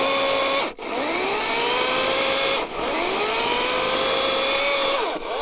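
Greenworks Pro 80V brushless cordless chainsaw whining at high speed as it cuts through a log. The motor cuts out briefly twice and winds back up in pitch over about a second each time, then its pitch falls near the end.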